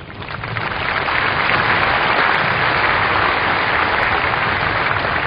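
Large crowd applauding, building over the first second or so and then holding steady.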